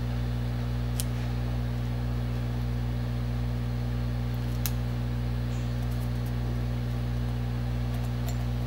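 Steady low electrical hum, even and unchanging, with a couple of faint clicks from tape being handled on a mug, about a second in and near the middle.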